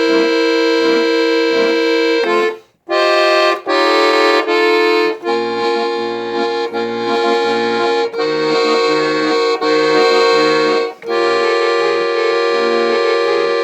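Accordion playing a melody over held chords, with pulsing bass notes joining about five seconds in. A short break comes about two and a half seconds in.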